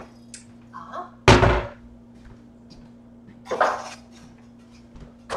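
A wooden kitchen cabinet door shut with a loud thunk about a second in, followed by two lighter clatters.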